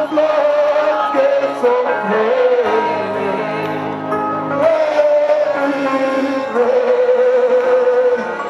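Gospel worship music: a voice sings long, held notes over steady instrumental backing.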